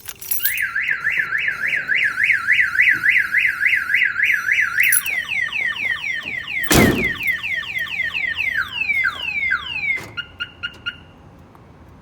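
Viper car alarm siren going off, set off by an attempt to start the car: a fast warbling tone of about four swings a second, then a run of falling sweeps, then a few short beeps before it stops about 11 s in. A single loud thump sounds near the middle.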